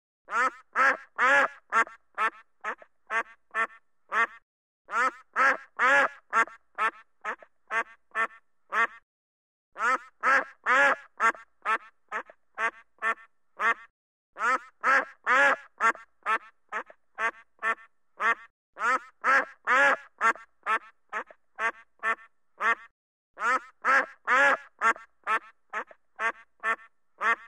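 Duck quacking in runs of rapid, loud quacks, about three a second, each run lasting about four seconds, swelling and then trailing off, with short pauses between runs; the runs repeat at even intervals about six times.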